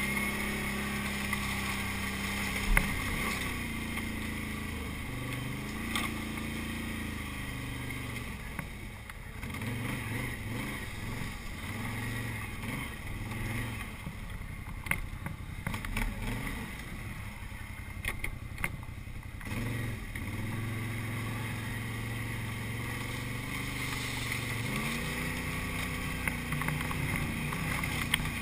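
Can-Am Renegade 800 ATV's V-twin engine pulling up a rough, overgrown trail: steady at first, then the throttle rising and falling over and over through the middle, steady again after that. Scattered knocks and thumps from the machine hitting ground and brush, the sharpest about three seconds in.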